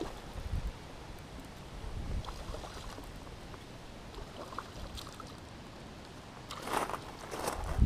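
Wind rumbling on the microphone and water splashing as a hooked bass is reeled in to the bank, with a louder, brief rush of splashing near the end.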